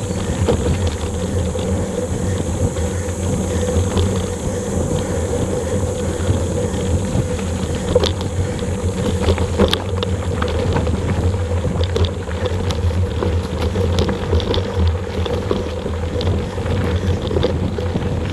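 Mountain bike rolling fast over a dirt trail: a steady low rumble of wind and tyre noise on an action-camera microphone, with scattered clicks and rattles from the bike from about eight seconds in.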